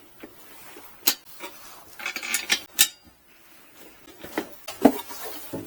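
A few separate metallic clicks and clinks from small metal parts and a hand tool being handled, with light handling noise between them.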